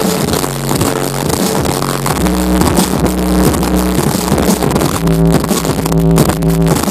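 Loud electronic dance music from a live DJ set, heavy pulsing bass with a dense, distorted top, as heard in a concert crowd.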